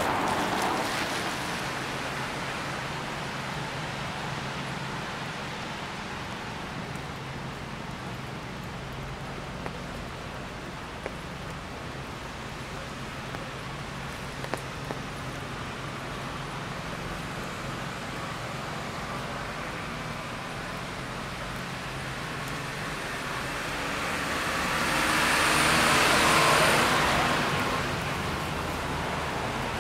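Rainy city street traffic: a steady wash of traffic noise with a low engine hum, and one vehicle passing on the wet road, its tyre hiss swelling and fading about 25 seconds in.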